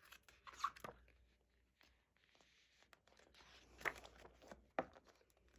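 Quiet handling of a paper photo book: faint rustling with a few short, sharp taps and clicks, two of them close together under a second in and two more about four and five seconds in.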